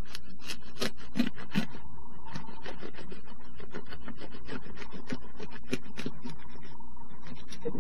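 Plastic cling wrap crinkling and crackling in irregular bursts as it is cut through and squeezed around a frozen ice-cream bread cake, over a steady low hum.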